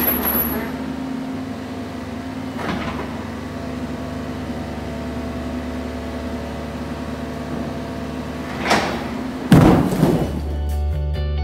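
Mini excavator's diesel engine running steadily as its bucket pushes on a concrete and block wall, with a couple of knocks, then a heavy crash about nine and a half seconds in as the wall section falls to the floor, the loudest sound. Music comes in near the end.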